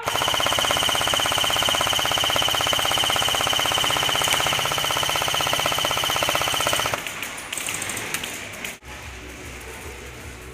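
Airsoft electric gun firing one long full-auto burst: a fast, even rattle over a steady motor whine that cuts off suddenly about seven seconds in. Fainter rapid shots follow.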